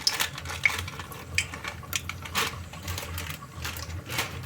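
Bay leaves sizzling in hot oil and ghee, with many irregular sharp crackles and pops over a low steady hum.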